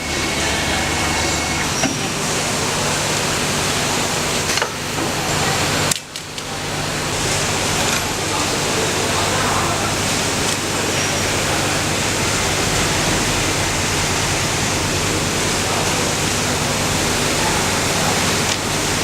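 Steady mechanical running noise with a constant hiss and low hum from an automatic CNC double-lip pocket sewing machine at work, dipping briefly about six seconds in.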